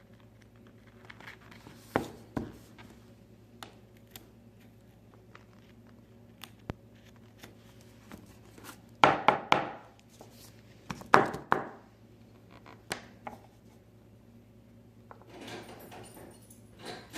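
Small hand tools (tweezers and a small screwdriver) clicking and tapping on a phone's camera housing and the work surface while broken lens glass is picked and cleaned out, with two louder clusters of knocks about nine and eleven seconds in.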